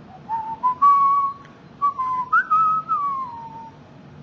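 A person whistling a melody: a single clear line of notes that steps upward, holds one note, then rises briefly and slides down in a long falling phrase near the end.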